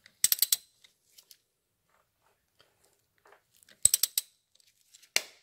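Ratchet wrench clicking in short quick runs, four or five clicks at a time, twice, then once more near the end, as it is swung back between pulls while the motorcycle's crankshaft is turned over by hand.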